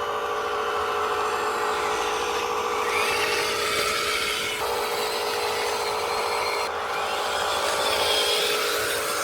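Electric motors and gear drives of a radio-controlled scale construction machine whining as it works. The pitch rises and falls with the throttle, and the sound changes abruptly a couple of times.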